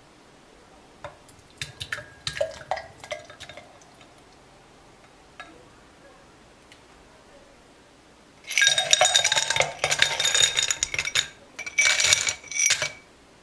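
Ice cubes tipped into two tall drinking glasses, clattering and clinking against the glass in two pours, one long and one shorter, starting about eight seconds in. Before that come a few lighter clinks against glass.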